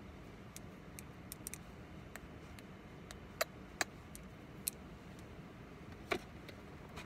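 Scattered sharp clicks and a brief crinkle of small handling noises over a low steady hum inside a car.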